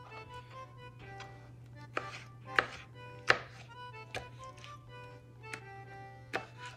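Kitchen knife striking a cutting board in a series of sharp, unevenly spaced chops as cuttlefish meat is scored and cut, over background music.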